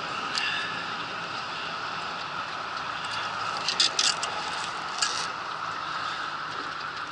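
Sharp clicks and rattles as a fish-grip tool and the lure are handled on a caught remora: a quick cluster a little after halfway and one more click about a second later. A steady rushing noise runs underneath.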